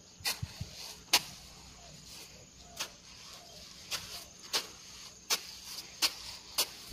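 A string of sharp, irregular clicks and taps, roughly one every half second to a second, over a faint steady high insect buzz.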